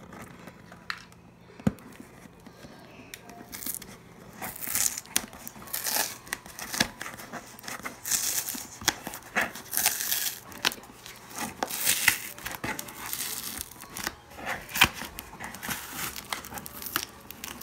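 Clear packing tape being picked at and peeled off a cardboard box: repeated tearing rasps with crinkling and small clicks, starting about four seconds in after a quieter stretch.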